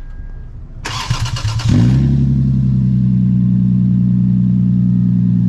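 2001 Lexus IS300's 3.0-litre inline-six cranked by the starter, catching about a second and a half in and settling straight into a steady idle.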